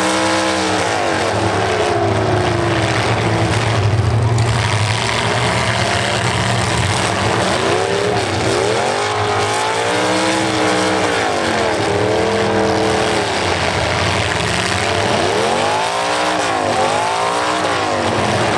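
Demolition derby cars' engines revving hard and dropping back again and again as the cars back up and ram each other, over a steady loud din.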